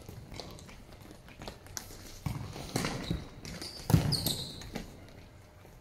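Futsal ball being kicked on an indoor court: a few separate thuds, the loudest about four seconds in. A short high squeak of indoor shoes on the hall floor follows it.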